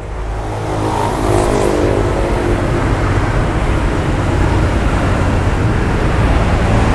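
Road traffic noise: a steady rush of passing motor vehicles, with an engine hum heard in the first couple of seconds. It grows louder over the first second or so, then holds.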